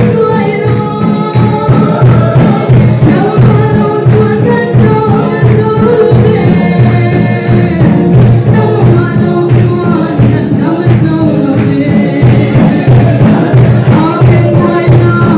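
A gospel song sung live by a singer with voices joining in, over percussion keeping a steady beat.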